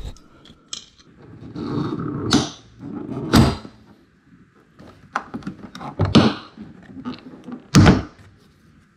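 Plastic push-in retainer clips on a C8 Corvette's front wheel-well liner popping loose as the liner edge is forced back by hand: about six sharp snaps, with plastic scraping between. Two of the clips break.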